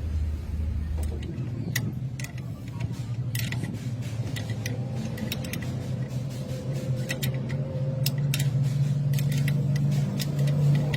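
A steady low mechanical hum, like an idling engine, that shifts to a higher pitch about a second in. Over it come many short, sharp metallic clicks and clinks, like hand tools handled on metal.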